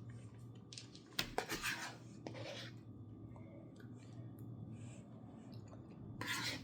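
Eating utensils scraping and clinking softly against dishes during a meal: a few short scrapes about a second in, a couple more after two seconds, and another cluster near the end, over a faint steady hum.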